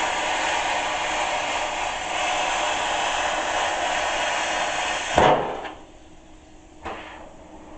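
Plasma cutter cutting steel with a steady, loud hiss that cuts off suddenly about five seconds in. A sharp knock follows, then a fainter knock a moment later.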